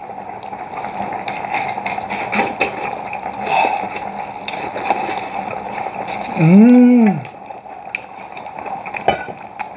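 Loud close-up eating noises from a man biting and chewing a whole boiled chicken: wet smacking, slurping and chewing clicks over a steady hiss from the boiling pot. About six and a half seconds in comes a drawn-out vocal sound of relish that rises and falls in pitch, the loudest moment.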